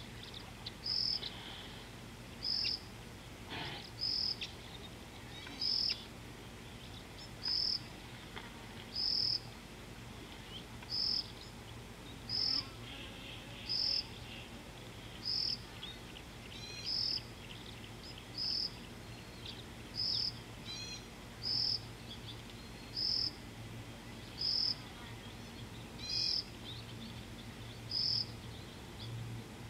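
Wild bush ambience: a short high note repeating about every one and a half seconds, with a few scattered bird chirps and a faint insect background. A low steady hum runs underneath.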